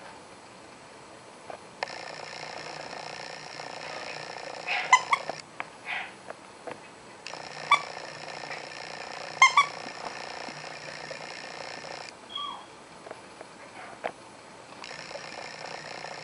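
Sun conure giving short, high squeaky chirps: a couple about five seconds in, more near the middle, and a short falling call later. Soft taps and scuffles of the bird tussling with a plush toy come in between.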